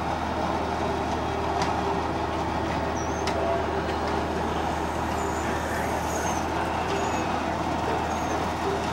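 City bus engine running steadily at low speed, with a few short high chirps over it in the second half.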